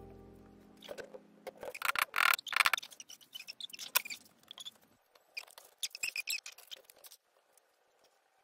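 Rustling, scraping and light clicking handling noises close to the microphone, coming in irregular clusters and stopping about seven seconds in. A held music chord dies away in the first second.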